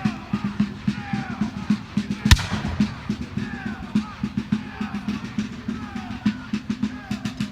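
Fast, steady drumming with higher sliding notes above it, and one sharp, loud bang a little over two seconds in.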